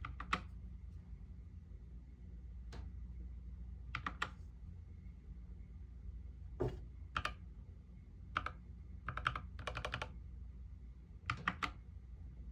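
YUNZII KC68 mechanical keyboard with lubed Gateron Yellow linear switches and XDA keycaps being typed on. Single keystrokes and short quick runs come at irregular gaps, with the longest fast run about three-quarters of the way through.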